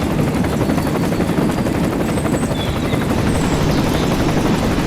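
A small motor running steadily with a rapid fluttering whirr.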